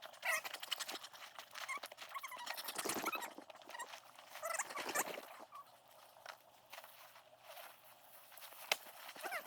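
Irregular rustling, clicks and taps from a tent being set up.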